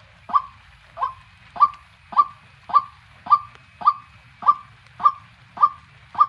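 White-breasted waterhen calling: a short, sharp note repeated evenly, a little under twice a second.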